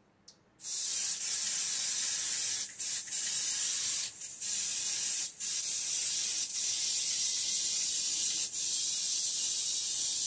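Aerosol baking spray (the kind with flour in it) hissing from the can as a glass baking dish is coated. It starts about half a second in and keeps going as one long spray, broken by several short gaps.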